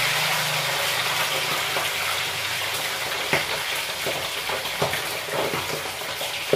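Pork pieces deep-frying in hot cooking oil in a steel pan: a loud, dense sizzle, the oil bubbling hard around the freshly added meat and slowly easing, with a few sharp pops from about halfway through.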